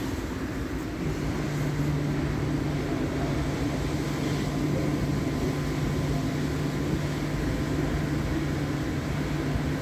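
IMO Softline automatic car wash running: a spinning side brush, water spray and wash machinery make a steady mechanical hum and rush, with a low hum coming in about a second in.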